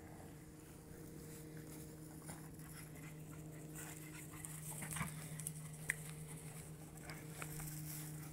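A black Labrador and a Boston Terrier playing on grass: soft scuffling and patter, with two sharp clicks about five and six seconds in, over a steady low hum.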